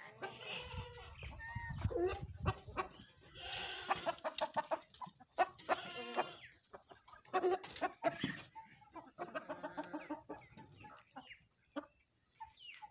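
Chickens clucking and goats bleating in a string of short calls with pauses, fewer near the end.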